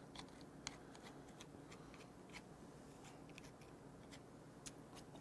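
Faint, scattered clicks of chopsticks picking at and scraping roe and meat from a piece of raw female blue swimming crab.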